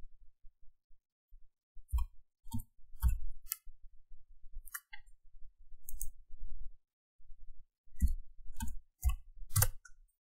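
Computer keyboard keystrokes and mouse clicks: about ten short separate clicks in small groups, as points are picked and object-snap commands are typed in AutoCAD.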